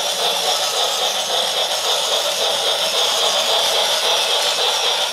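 Battery-powered toy train running along its plastic track: a steady mechanical whir and rattle with a fast, even pulsing.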